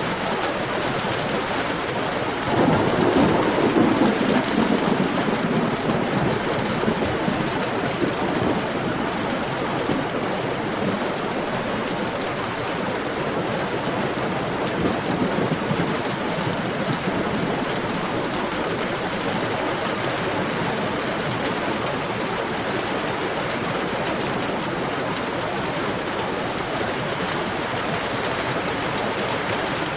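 Heavy rain falling steadily. About two and a half seconds in, a low rumble of thunder swells up and fades away over several seconds.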